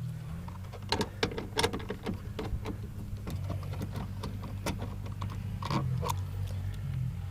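Irregular clicks and ticks of a hand tool working a 10 mm screw out from under a pickup's rear door trim panel, over a steady low hum.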